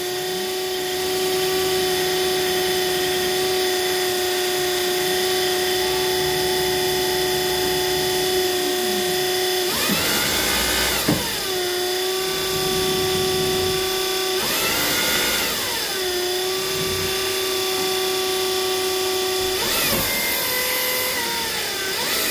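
Electric motor of a Crown RR5500 reach truck running under the control handle, a steady whine. Four times the pitch sweeps down and comes back as the handle is moved, with the truck answering the newly calibrated handle.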